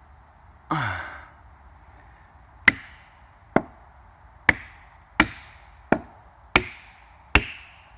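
A felling wedge being driven into the back cut of a standing tree with hammer blows: seven sharp, evenly paced strikes, a little under a second apart, each with a short ringing tail. About a second in there is a brief rushing noise before the blows begin.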